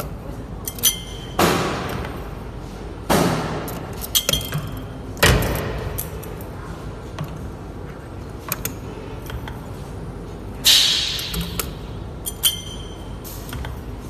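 Camless CNC spring-forming machine at work forming a wire spring. Sharp metallic knocks ring out every couple of seconds as the tool slides strike and bend the wire, with lighter clicks in between and a louder hissing burst about ten and a half seconds in.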